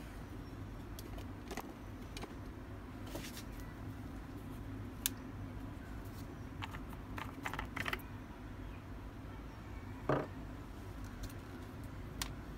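Scattered light plastic clicks and taps over a steady low background hum, as an orange vent cap is twisted off a lead-acid car battery cell, with a sharper knock about ten seconds in.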